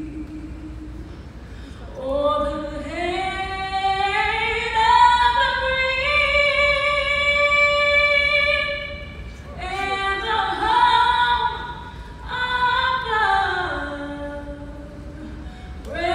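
A young female singer singing the national anthem solo and unaccompanied, phrase by phrase with short breaths between, holding one long note for several seconds midway.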